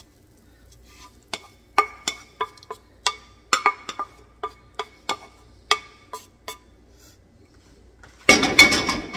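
Wooden spatula scraping and knocking chopped vegetables out of a nonstick skillet into a pot: about a dozen sharp, ringing knocks, then a louder clatter of cookware near the end.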